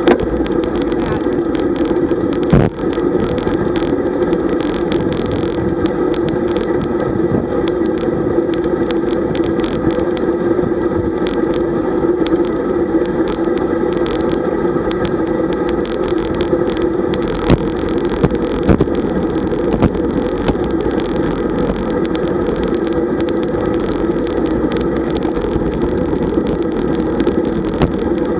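Road bike riding noise: a steady hum and rush of tyres on asphalt and wind, picked up by a camera on the bike, with frequent small rattles and knocks from the road surface and a louder knock about two and a half seconds in.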